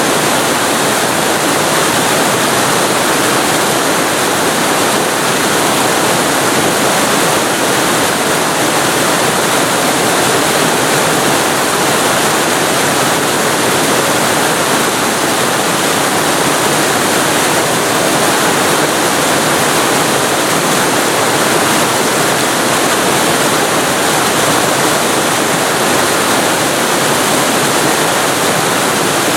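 Waterfall recorded very close to the falling water: a loud, steady rush with no breaks or changes.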